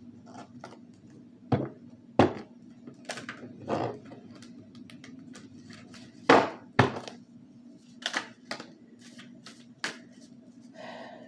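Tarot cards being handled and laid down on a table: scattered sharp taps and knocks, about eight in all, over a faint steady hum.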